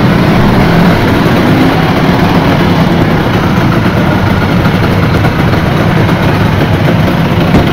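Many Vespa scooter engines running and idling together in a steady, loud mass of engine noise.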